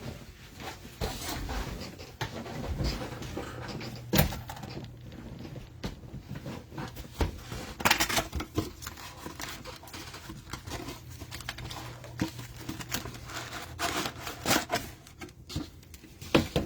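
Irregular crinkling, tearing and tapping of plastic wrap and cardboard as a box of trading-card cello packs is opened and the packs are handled, with scattered sharp clicks.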